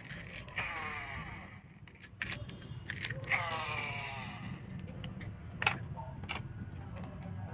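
Small plastic toy car's gear motor whirring as its wheels spin, falling in pitch as it runs down, twice, with plastic clicks and knocks of the toy cars against each other and the wooden table.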